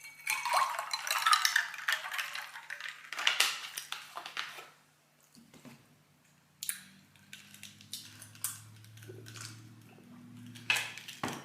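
A drink being poured into a cup: a splashing pour of about two and a half seconds, then a second shorter pour. Quieter clicks and clinks of dishes follow.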